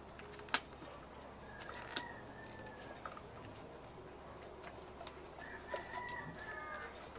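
A few sharp plastic clicks and knocks from handling the rubber intake boot as it is pushed onto the Mini's engine, the loudest about half a second in. Faint high squeaks come twice, around two seconds in and again near the end.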